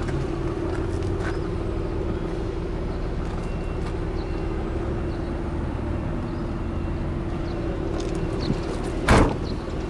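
Nissan 300ZX Twin Turbo's V6 idling steadily. Near the end a car door is shut with one loud bang.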